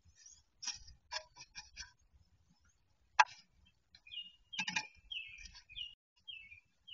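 Wood duck hens scuffling inside a wooden nest box: a string of sharp clicks and taps against the wood, with one louder knock about three seconds in and a quick flurry of taps a second and a half later. Short high chirps follow.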